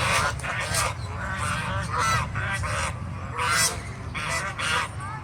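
Domestic geese honking: a string of about eight harsh honks at uneven intervals.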